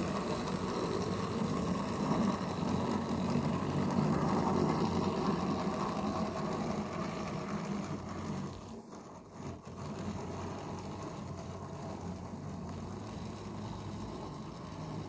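009 model train, a Bagnall Meyer locomotive hauling 30 four-wheel wagons round a tight 12-inch-radius curve: a steady rumble of small wagon wheels on the track with the hum of the locomotive's small electric motor under heavy load. The sound drops briefly about nine seconds in.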